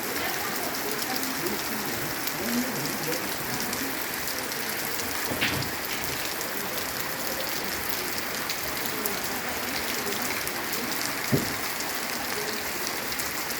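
Steady rain falling, a continuous hiss full of fine drop ticks, with a couple of louder single drips or knocks, one about five seconds in and one near eleven seconds.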